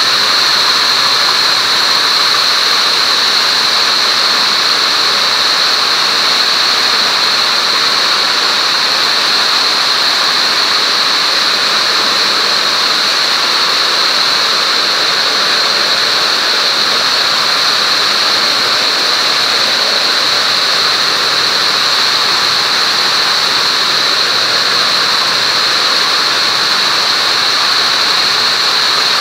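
MAX910 air-jet weaving looms running at high speed: a loud, steady mechanical din with a strong high hiss and no let-up.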